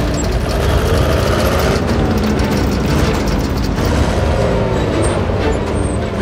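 Tank on the move: a deep, steady engine rumble with a whine that rises and falls twice.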